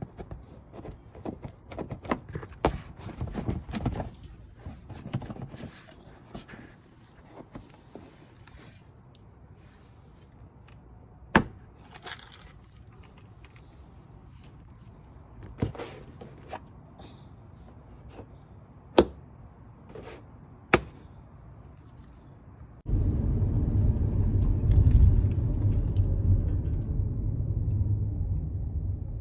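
An insect chirring steadily in a high, fast-pulsing trill, with soft steps and four sharp clicks. Near the end the chirring cuts off and a louder low rumble takes over.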